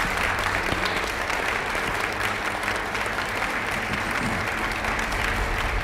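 Audience applauding at the end of a speech, steady clapping from a film trailer's soundtrack.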